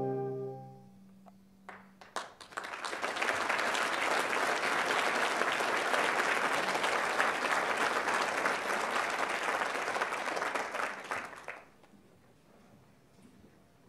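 The wind band's held final chord ends within the first second; after a short pause a few scattered claps start, then the audience applauds for about nine seconds before the clapping stops fairly suddenly.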